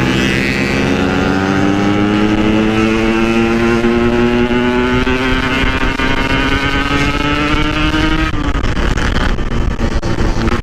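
Yamaha RX-King two-stroke single-cylinder engine pulling under throttle, its exhaust note rising slowly in pitch as the motorcycle gathers speed. About eight seconds in, the steady note breaks off into a rougher sound without a clear pitch.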